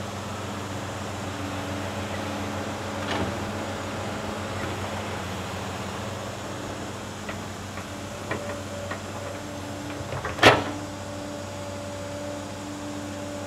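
Tracked hydraulic excavator's diesel engine running steadily while the machine swings and lowers its boom, with a few light knocks and one loud, sharp knock about ten seconds in as the bucket works into the pit.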